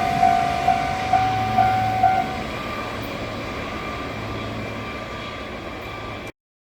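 Japanese railway level-crossing warning bell ringing its 'kan-kan' tone about twice a second, stopping about two seconds in as the crossing clears. Under it the rumble of the passing train carries on, then cuts off suddenly near the end.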